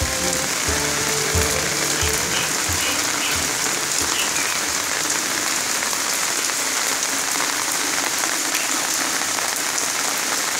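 Heavy rain pouring down in a steady, even hiss. Under it for the first three seconds or so, music with a low beat about twice a second, which then stops.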